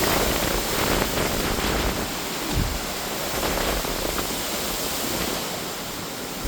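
Hurricane wind and heavy rain: a steady rushing noise.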